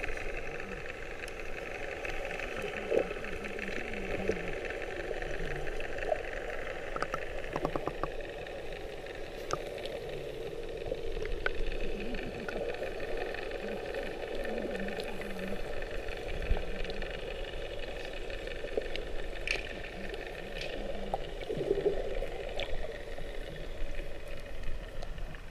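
Muffled underwater sound picked up by a submerged camera: a steady hum with a few faint clicks scattered through it.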